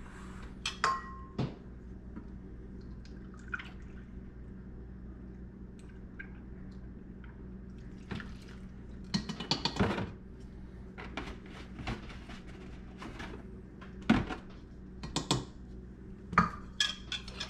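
Kitchen clatter of a measuring cup, spoon and ceramic mixing bowl knocking and clinking on a stone counter, with milk poured from a plastic jug into a measuring cup.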